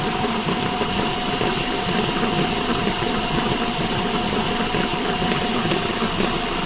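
Car wheel hub turning on a worn wheel bearing at the CV axle, running with a steady, even rumble and a faint constant tone over it. This bearing is the source of the rolling noise heard while driving.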